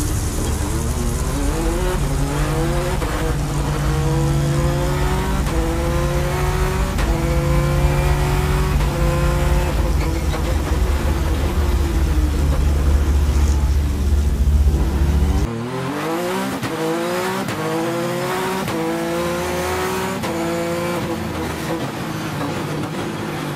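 Peugeot 208 T16 Pikes Peak race car's twin-turbo V6 accelerating hard, its pitch climbing and then dropping back with each gear change, every second or two. About two-thirds of the way through, the sound abruptly loses its deep low rumble while the rising and shifting carries on.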